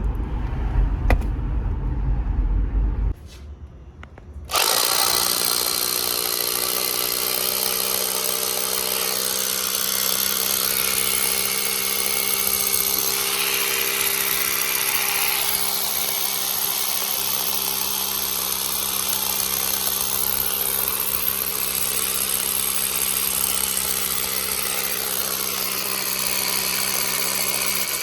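A power drill runs steadily without stopping, drilling holes into a wall. It starts about four and a half seconds in, after a low car-cabin rumble that cuts off about three seconds in.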